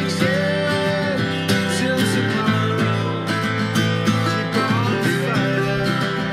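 Folk song played on two guitars, a sunburst acoustic and a metal-body resonator guitar, picked and strummed together at a steady pace, with a man singing long held notes over them.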